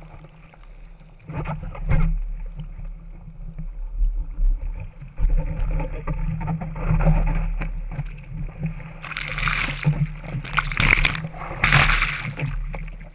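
Surf washing over and around a waterproof-housed GoPro on a surfboard's nose: a steady muffled rumble with uneven sloshing and splashing, the lens dipping under the water, and a run of loud splashes near the end.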